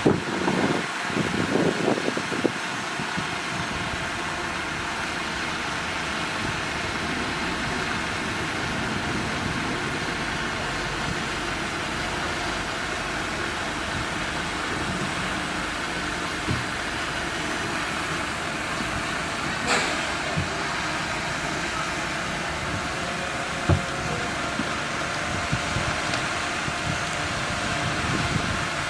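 Steady machinery running noise with a few short knocks, from earth-moving equipment shifting soil.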